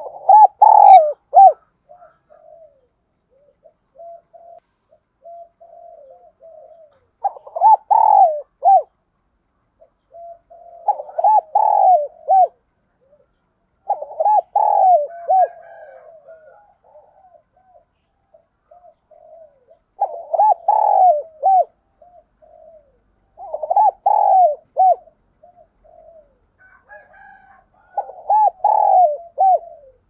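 Spotted dove (a caged decoy bird) cooing. About seven loud phrases of several notes each, spaced a few seconds apart, with softer short coos between them.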